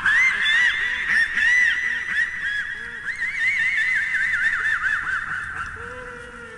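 Homemade velociraptor call sound effect: a rapid run of short, overlapping chirping calls over a steady high tone, fading out near the end.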